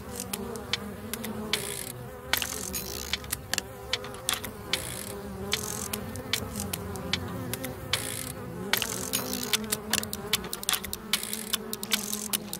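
A swarm of black flies buzzing close around the microphone, a steady wavering drone with several pitches at once. Many sharp ticks sound over it, coming thick and fast after about nine seconds in.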